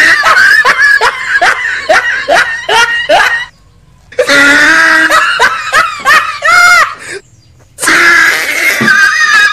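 Loud laughter, a rapid string of 'ha-ha' pulses about three a second, coming in three bouts with two short silent breaks between them.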